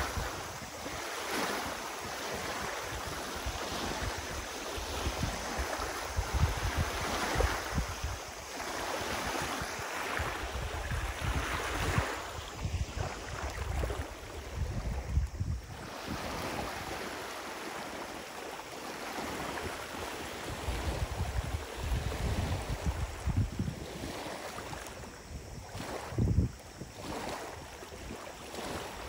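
Small freshwater waves lapping and washing onto the Lake Biwa shore, with wind buffeting the microphone in irregular gusts.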